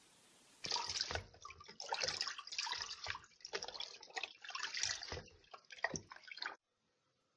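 Water splashing and dripping in irregular bursts as freshly washed wild chard leaves are handled and set to drain. The sound starts under a second in and cuts off abruptly about a second before the end.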